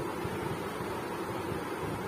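Steady rushing noise of moving air on the microphone, even throughout with no distinct knocks or clicks.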